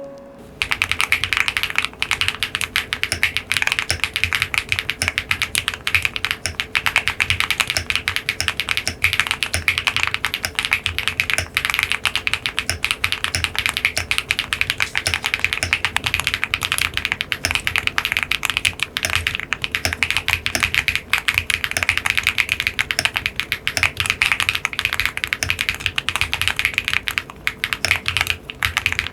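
Fast, continuous typing on a QwertyKeys CUB65 custom mechanical keyboard fitted with linear switches: a dense run of keystrokes that starts about half a second in.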